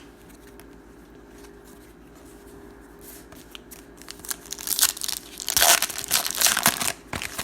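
Panini Prizm football card pack wrapper being torn open and crinkled. It starts about three seconds in and is loudest near the end.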